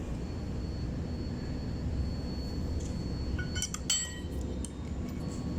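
Steady low workshop rumble, with a short cluster of ringing metallic clinks about three and a half seconds in, as metal tools knock against engine parts.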